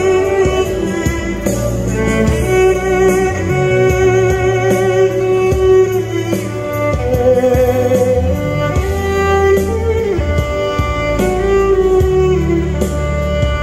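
Solo violin playing a slow pop melody in long held notes with vibrato, over a recorded backing track with a bass line and a light beat.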